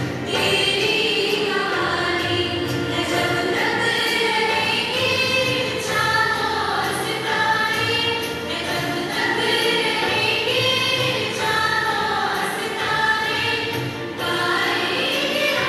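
A group of girls singing together as a choir into stage microphones, a continuous sung melody with long held notes.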